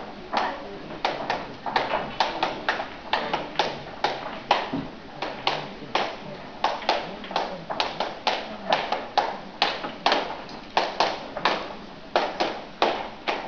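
Flamenco performers' unaccompanied percussion: sharp hand claps (palmas) and taps, about two to three a second in an uneven, accented rhythm.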